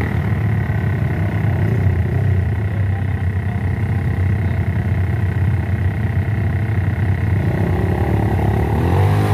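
Trail motorcycle engine running under load on a hill climb, a steady drone whose pitch begins to climb near the end as it revs up.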